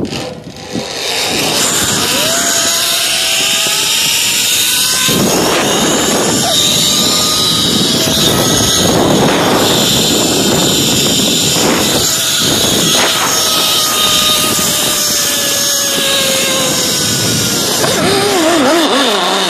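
Zip-line trolley pulleys running along the steel cable: a whine that climbs in pitch over the first few seconds as the rider picks up speed, then falls slowly as the rider slows toward the landing, over a steady loud rushing noise.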